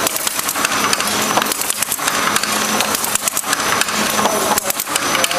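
Vantage 720 folder-gluer running while folding large crash-lock-bottom cartons: a steady mechanical hum under a dense clatter of clicks and rattles from the belts and board blanks passing through.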